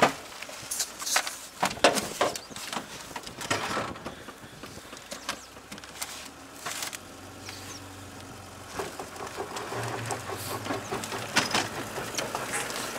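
Rattling and irregular sharp knocks from an off-road flatbed truck's load bed and metal rail as it drives over rough ground. The truck's engine comes up as a steady low hum about halfway in.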